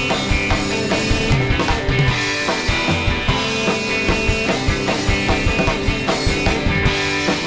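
Rock band playing live, with a drum kit keeping a steady beat under sustained guitar and other instruments.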